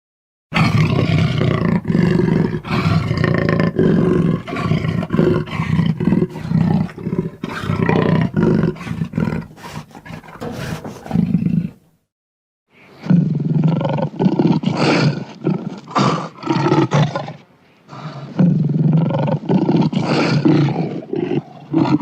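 Tyrannosaurus rex roar sound effect: one long, deep roar lasting about eleven seconds, then after a brief silence two shorter roars, with another starting right at the end.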